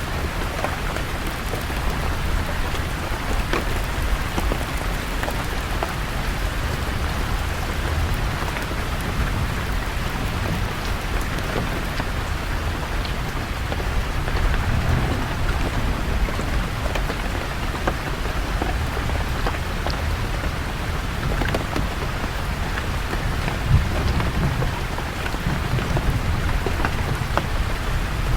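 Steady rain falling on leaves, a dense hiss full of small drop ticks, with low rumbles of distant thunder swelling in and out. One sharper, louder tick stands out about 24 seconds in.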